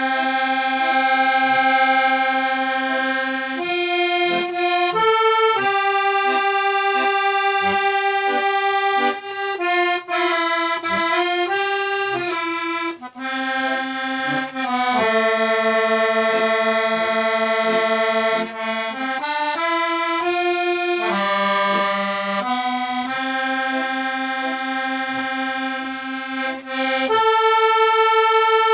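Solo accordion playing a slow melody in long held notes that step from pitch to pitch, with short soft bass notes beneath.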